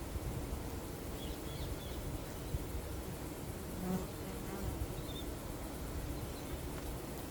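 Honeybees buzzing: a dense, steady drone of many bees, with a brief louder buzz about four seconds in as a bee passes close.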